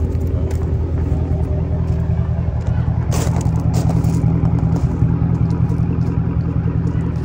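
Car engine idling with a steady, deep rumble. A short hiss cuts in about three seconds in.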